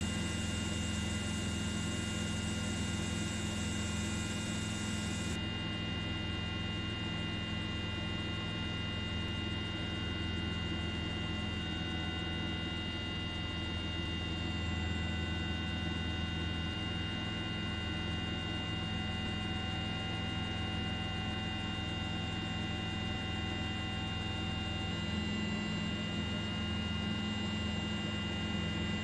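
Steady drone of a helicopter's engine and rotors heard from the aircraft, with a few high, steady whining tones over a deep, even hum.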